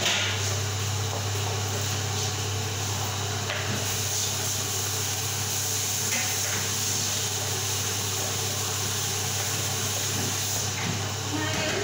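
Kitchen range hood fan running steadily with a low hum, with a few faint knocks of kitchenware.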